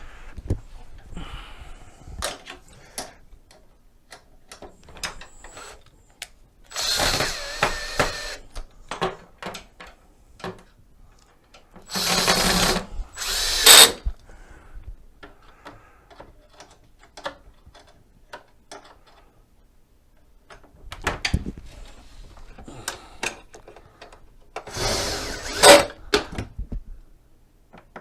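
A cordless power driver runs in about five short bursts, driving fasteners, with clicks and knocks of parts being handled between the runs.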